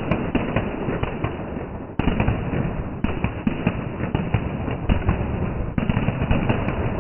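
A string of red firecrackers going off in a dense, continuous run of bangs, heard slowed down in slow-motion playback. The run breaks off and restarts abruptly a few times.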